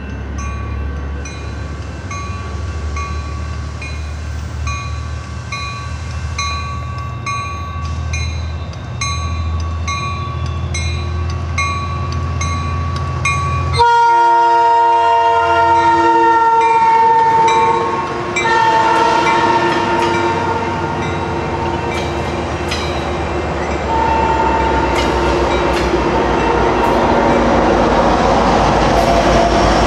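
Metrolink push-pull commuter train approaching with a low rumble, and a bell-like ding repeating about every half second or so. About halfway through, the horn on the leading cab car sounds long, loud blasts of a chord of several tones, three times with short gaps, as the train draws alongside.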